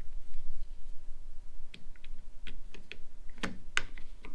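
A scattered series of sharp plastic clicks and taps, most of them in the second half and loudest about three and a half seconds in, as a flat-blade screwdriver pries up and snaps open the plastic cover on a roof-rack crossbar foot.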